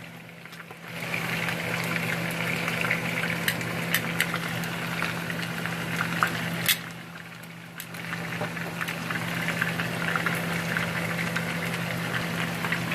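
Chunks of pork frying in hot oil in a pan: a steady sizzle full of small crackles and pops. The sizzle drops away briefly at the start and again about seven seconds in.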